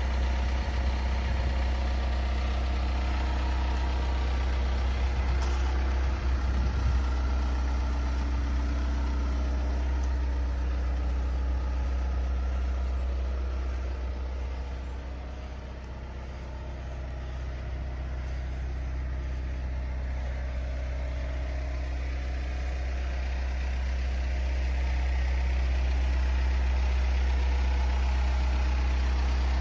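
Mitsubishi L200 pickup's diesel engine idling steadily with a low, even hum. It grows quieter for a few seconds around the middle, then returns to its earlier level.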